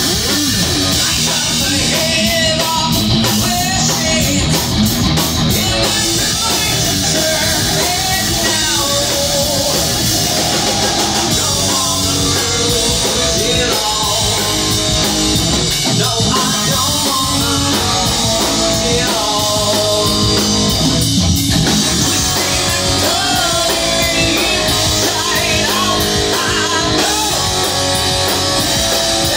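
A heavy rock band playing loud and live: distorted electric guitars and a drum kit, with a singer's voice over them.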